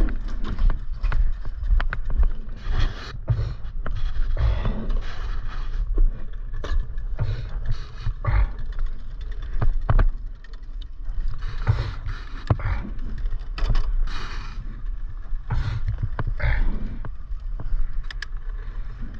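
A mountain bike's chain and rear derailleur being run through the gears by hand, the chain clattering and clicking over the rear cassette amid irregular knocks and scraping. It is a shifting test with the derailleur still needing minor adjustment.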